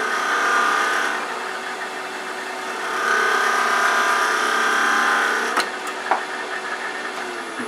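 Wood lathe running while a small detail gouge takes light cuts on a small turned finial. A little over five seconds in come a couple of sharp clicks as the tool catches: the cutting edge dropped below centre and the work climbed up and off the jam chuck. Right at the end the lathe's hum starts to fall in pitch as it winds down.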